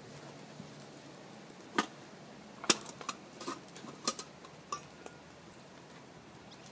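Scattered clinks and knocks of a camping mess tin, its lid and a plate being handled and set down, a few of them ringing briefly; the loudest comes a little under three seconds in.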